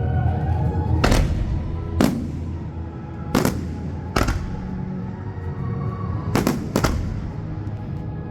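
Fireworks going off: six sharp bangs at irregular intervals, each with a short echo, the last two close together. Music plays underneath throughout.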